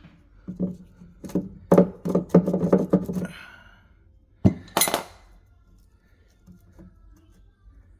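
A hand tool knocking and scraping at the edge of a wooden door, clearing away glued toothpick stubs left in the stripped hinge-screw holes. There is a quick run of sharp clicks and knocks, then two harder knocks about four and a half seconds in.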